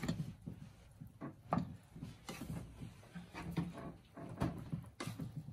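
Rice paddle stirring cooked rice in the inner pot of an electric rice cooker: irregular soft scrapes and light knocks of the paddle against the pot.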